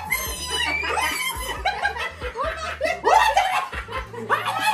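People laughing in repeated short bursts.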